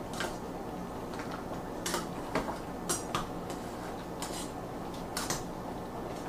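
Long metal fork clinking and scraping against the rim and sides of a stainless steel stockpot as greens are stirred and pressed down, a handful of irregular clinks.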